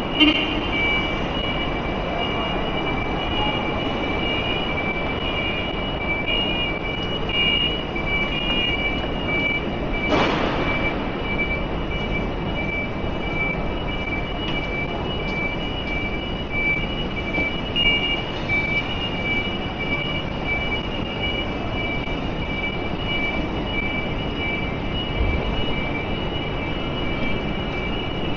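Busy railway station ambience: steady background noise with a constant high two-note tone, and a brief hiss about ten seconds in.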